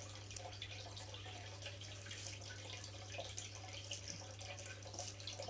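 Faint steady hiss with a low hum, and a few soft scrapes and ticks as support poles are handled in potting soil.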